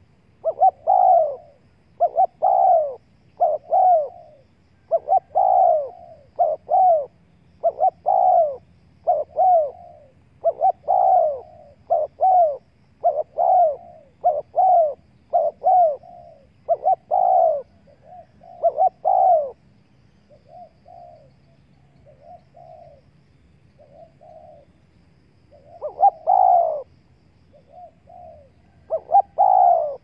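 Spotted dove cooing: a long run of short, repeated coo phrases, about one a second, loud through most of the run, then fainter notes for a few seconds before loud coos return near the end.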